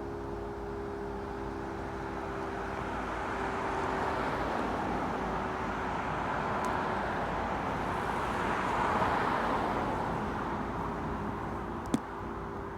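A road vehicle passing by: a broad rush of tyre and road noise that builds over several seconds, peaks about three quarters of the way through, then fades. A single sharp click comes near the end.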